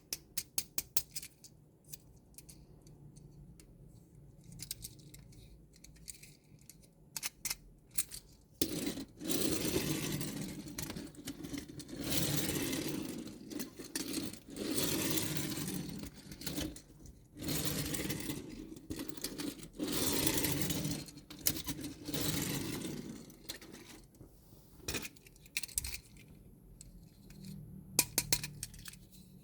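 Hands unboxing toys: a quick run of sharp clicks at first, then long rustling, crinkling bursts of packaging being handled, with small clinks and taps of toy parts in between.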